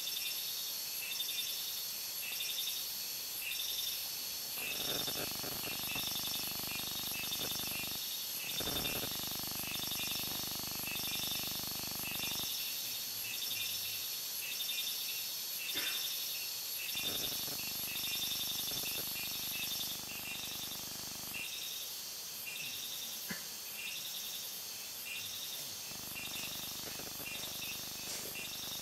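Forest insects keep up a steady, rhythmically pulsing high-pitched trill. A duller low rushing noise comes and goes in stretches of a few seconds.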